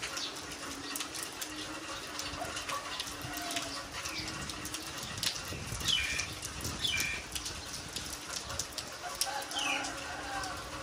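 Steady rain falling, with fine drips pattering throughout and birds calling over it: a few short high chirps falling in pitch, about six, seven and nine and a half seconds in.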